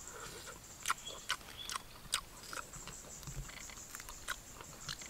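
A person chewing a mouthful of grilled fish eaten by hand, with irregular wet smacks of lips and mouth about every half second, over a steady high insect drone.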